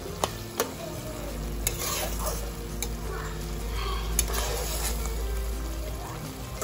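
Spatula stirring fried prawns through a thick curry gravy in a wok, with scattered clicks and scrapes against the pan over a steady sizzle.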